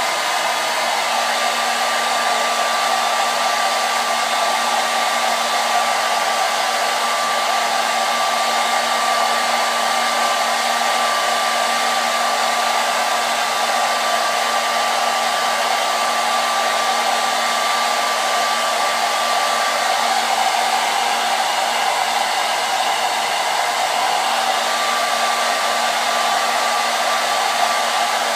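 Handheld hair dryer running steadily: a constant rush of blown air with a steady whine from its motor running through it.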